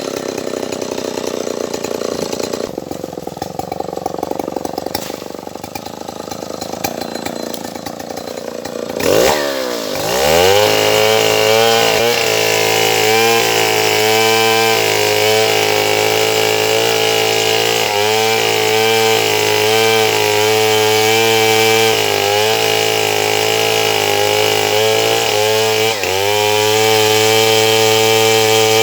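Stihl 070 two-stroke chainsaw running at high revs while sawing sengon wood. Its pitch swoops about nine seconds in, then holds high and steady, dipping briefly every few seconds.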